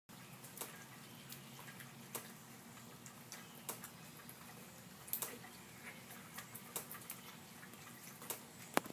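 Golden retriever puppies eating solid food from a shallow dish: irregular small clicks and ticks, a few a second, with a sharper click near the end.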